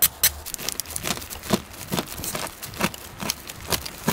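A steel knife blade scraping the burnt, charred crust off the underside of a pizza, a run of short rasping strokes a few a second.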